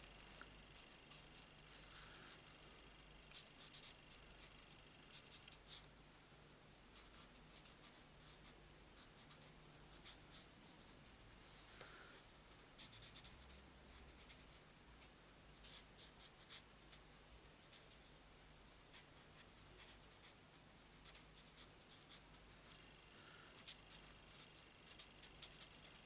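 Faint scratching of a Stampin' Blends alcohol marker's nib on cardstock as small areas are coloured in, in short runs of quick strokes with pauses between.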